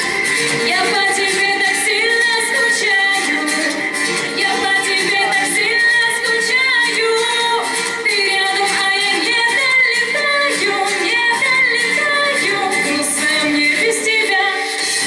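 A woman singing a pop song into a handheld microphone, over backing music with a steady beat.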